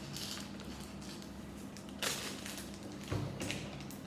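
Things being handled on a tabletop: a short rustle about two seconds in, then a dull thud about a second later, over a faint steady hum.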